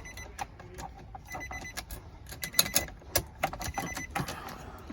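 Irregular light clicks and taps, with a faint high beep coming and going in the background.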